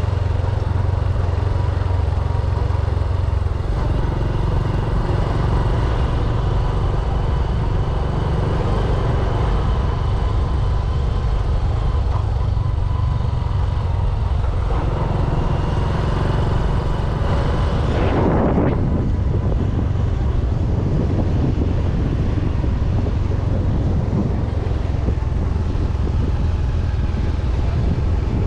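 Motorbike riding steadily along a paved road: engine and road noise under a heavy, steady wind rumble on the bike-mounted camera's microphone. A short rush of noise comes about two-thirds of the way through.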